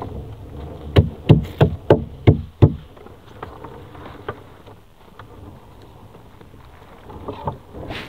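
Hand-hauling of a gill net aboard a small fishing boat: a quick run of six hard knocks, about three a second, about a second in, then lighter scattered knocks and rustling as the net comes in.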